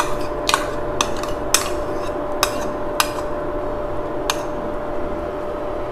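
Metal spoon clinking against bowls as fresh cream is scraped out of a plastic bowl into a glass bowl: about six light taps spread over a few seconds, over a steady hum.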